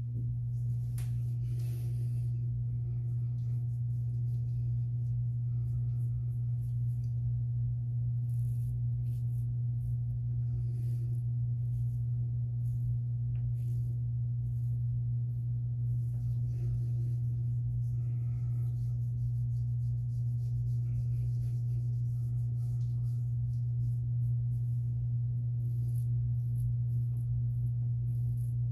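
A steady low hum holding one pitch, which cuts in just before and runs unchanged, with faint scrapes and clicks over it.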